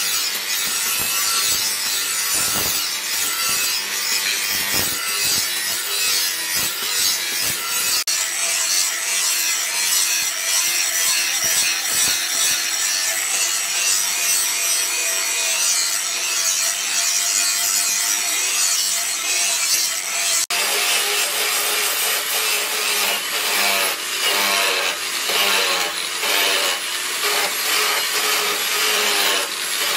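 Handheld electric angle grinder grinding the edge of a forged steel sickle blade, a continuous harsh grinding noise with a high steady motor whine through the middle stretch. The sound changes abruptly twice, about a quarter and two-thirds of the way in, as the grinding passes change.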